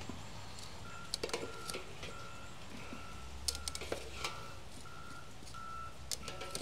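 Metal tongs setting charcoal briquettes onto a cast iron Dutch oven lid, with a few light clicks and clinks. From about a second in, a steady electronic beep repeats evenly, about one and a half times a second.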